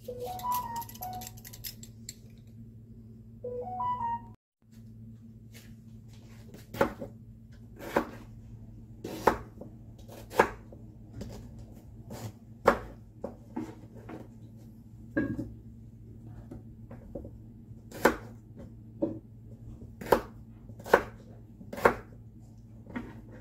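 A Y-peeler scrapes along watermelon rind with a few squeaky strokes. Then, from about seven seconds in, a chef's knife cuts through firm watermelon rind and knocks on a wooden cutting board roughly once a second, at an uneven pace, over a steady low hum.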